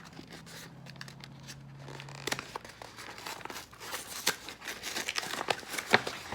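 Plastic MRE meal packaging crinkling and rustling as it is handled, with a low steady hum in the first couple of seconds, then a run of sharp crackles and clicks through the rest.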